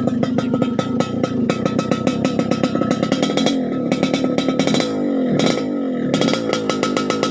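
Yamaha RX-King's 135cc single-cylinder two-stroke engine revving through an open exhaust, with a rapid crackling rasp. The revs dip and climb again about five seconds in.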